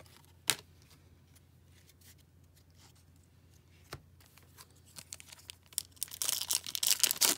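A single sharp tap about half a second in, then the wrapper of a hockey card pack being crinkled and torn open over the last second and a half, the wrapper shredding as it tears.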